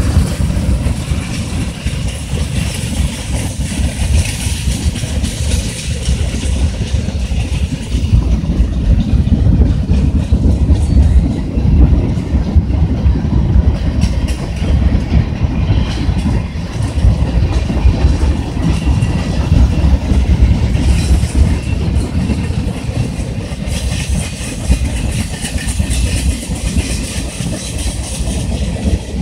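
Norfolk Southern freight cars rolling steadily past: a loud, continuous low rumble of steel wheels on rail with irregular clacks and knocks.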